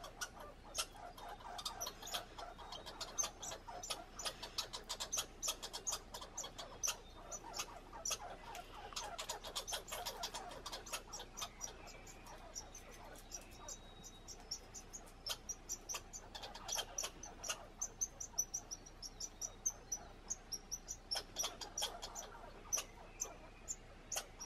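American red squirrels chattering at each other in a territorial squabble over food: fast runs of sharp ticks, with harsher churring bouts every few seconds.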